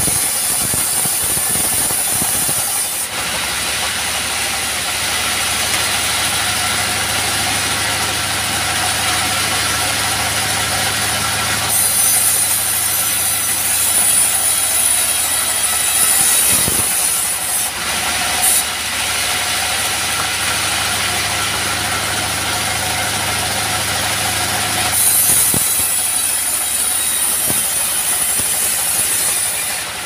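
Bandsaw mill cutting logs into boards, its engine running steadily under a high hiss from the blade in the wood. The cutting hiss stops about 3 seconds in, comes back for several seconds around the middle, and returns near the end.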